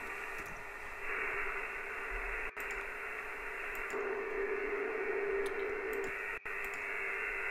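Noisy radio-style audio test signal, a steady hiss with a steady tone in it, played through an ADAU1701 DSP noise filter. The audio cuts out briefly twice as the filter output is switched, and the tone grows louder for a couple of seconds in the middle.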